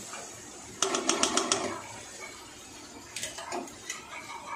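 A metal spatula rapped quickly against a steel kadai, about six sharp taps in under a second, knocking off the masala. A few lighter clicks follow as the spatula is set down.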